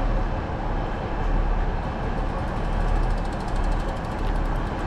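Diesel passenger train running on the West Highland line, a steady rumbling noise with a fast, faint regular ticking joining in about halfway through.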